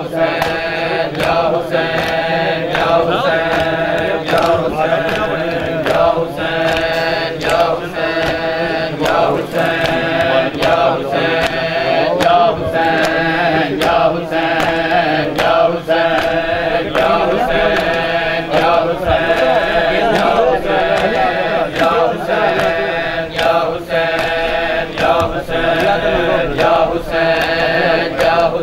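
A group of men chanting a mourning chant together, with a steady beat of sharp slaps from hands striking bare chests in time (Shia matam).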